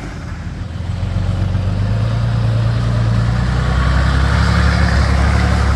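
Nissan Patrol four-wheel drive's engine running at low revs as it crawls along a rough track, growing louder over the first two seconds and then holding steady.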